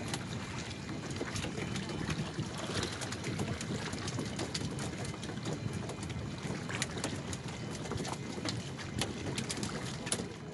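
Sea water lapping and splashing around wooden outrigger fishing canoes, with wind on the microphone and scattered small knocks and splashes throughout.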